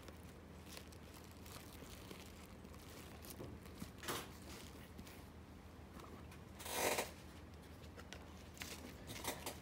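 Quiet handling noises: a sneaker and a paper card being handled, with short rustles and the loudest brief rustle about seven seconds in.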